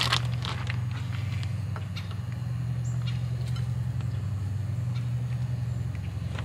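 Low, steady drone of a barge tow's engines out on the lake, with scattered faint clicks over it.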